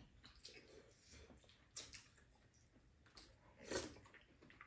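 Faint eating sounds: a few short mouth and spoon noises as two people eat soup and rice, the loudest nearly four seconds in, over near silence.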